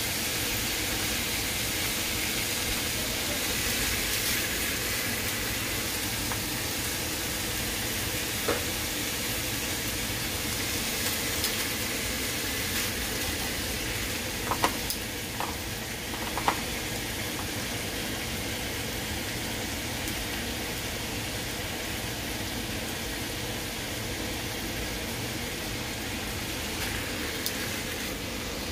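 Seasoned boneless chicken thighs sizzling in a frying pan, a steady hiss as the meat starts to cook in the fat it releases. A few sharp clicks near the middle.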